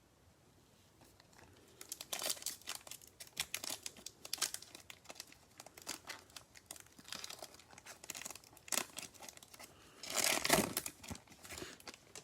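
Trading-card pack wrappers being torn open and crinkled: a run of crackly rustling that starts about two seconds in and is loudest near the end.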